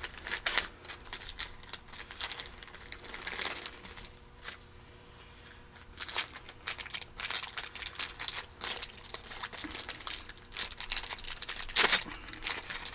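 Clear plastic packaging crinkling and rustling as a new thrust bearing is unwrapped and handled, with small clicks throughout and the loudest crackle near the end.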